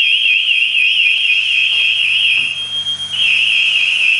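Firefighter's PASS alarm sounding: a loud, high warbling tone, about five wobbles a second, over a second steady high tone. The warble breaks off briefly about three-quarters of the way through, then starts again. This is the alarm that signals a downed, motionless firefighter.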